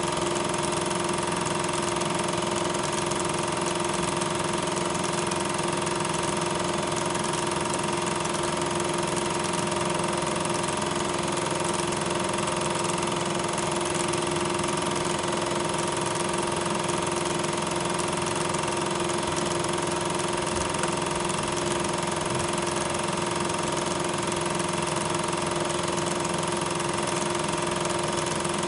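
A loud, steady mechanical drone with constant hum tones, unchanged from shot to shot: the running noise of the projector that played the silent regular 8mm film during transfer, not the trains in the picture.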